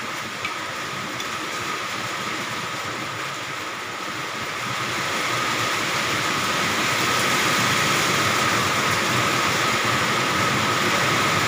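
Steady rain falling, a continuous hiss that grows heavier about five seconds in.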